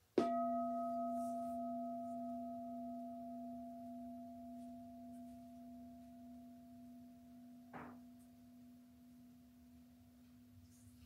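Buddhist bowl bell struck once with a wooden striker, ringing on with a deep hum and a few higher overtones that slowly fade away. A short soft rustle about eight seconds in.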